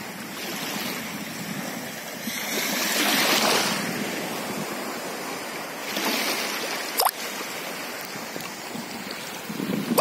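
Small waves lapping and washing over the sand in shallow seawater, swelling into a louder wash about three seconds in. A single sharp click sounds about seven seconds in.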